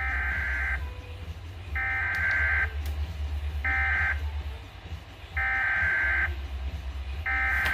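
SAME data-header bursts of a Weatherradio Canada emergency alert, sent twice over for a double header: harsh digital warbling tones about a second long, coming roughly every two seconds, over a steady low hum.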